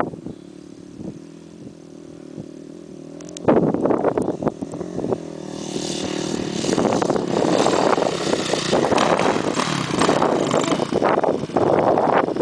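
Off-road dirt bike engine, faint and steady at first, turning much louder about three and a half seconds in and staying loud as the bike rides up close.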